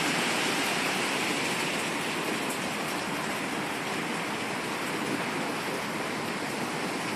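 Steady rush of heavy rain in hurricane-force storm weather, an even hiss with no breaks.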